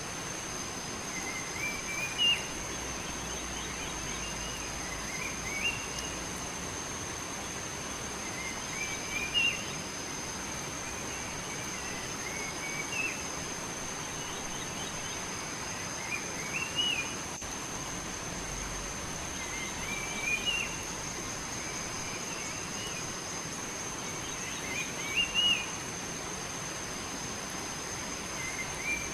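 A songbird singing short rising phrases, repeated about every three to four seconds, over a continuous high-pitched insect whine and a steady hiss of outdoor background noise.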